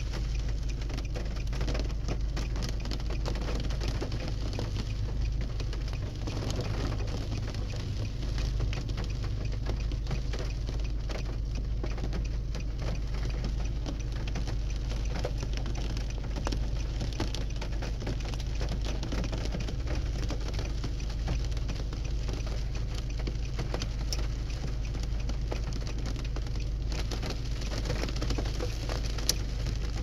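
Steady rain pattering, with a bird calling now and then in the background.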